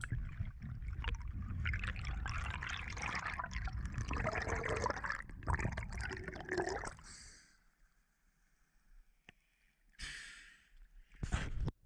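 Muffled rushing and bubbling water picked up through an underwater camera housing as a freediver swims up toward the surface, cutting off about seven seconds in. Two short hissing bursts follow near the end.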